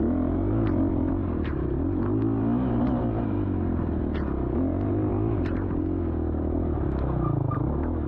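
Dirt bike engine running under varying throttle, its pitch wavering up and down as it rides through a muddy rut section. Scattered sharp clicks sound over it.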